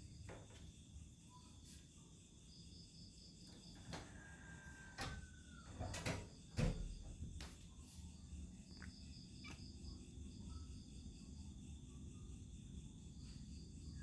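Night insects, crickets, chirping in repeated pulsed trills over a low background hum. Around the middle come a few sharp clicks and knocks, a short falling whistle-like tone, and one heavier thump.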